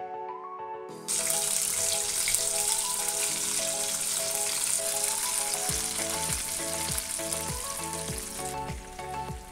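Chicken wings frying in hot oil in a frying pan, a steady sizzle that starts suddenly about a second in. Background music plays underneath.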